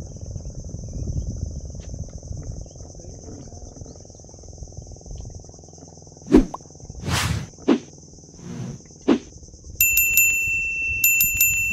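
Insects buzzing steadily in a high, even drone over low rumbling outdoor noise, with a few sharp knocks in the middle. Near the end a bell rings in quick repeated pulses for about two seconds.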